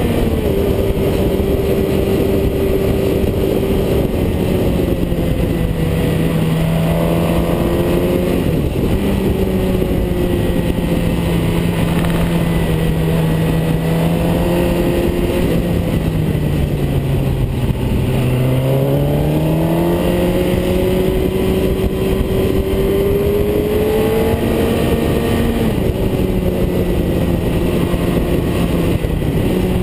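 A vehicle engine running at steady revs over constant wind and road noise. Its pitch steps down and climbs again several times as the throttle and gears change, dipping deepest a little past halfway before rising.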